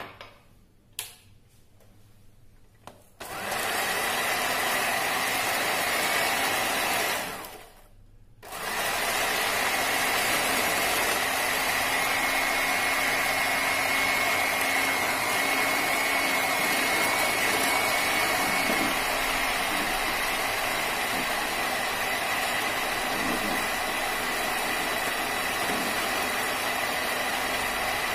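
Electric hand mixer beating Dream Whip powder and cold milk in a steel bowl. It switches on about three seconds in, cuts out for about a second near the eight-second mark, then runs steadily with a high whine.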